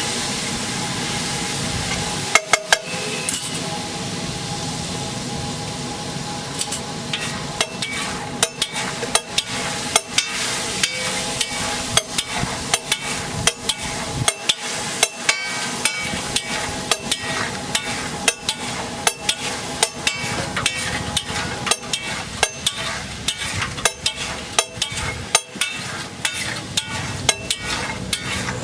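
Metal spatula clanking and scraping on a hot griddle while egg fries with a steady sizzle. The strikes are sparse at first, then come quickly and irregularly, several a second, from about seven seconds in.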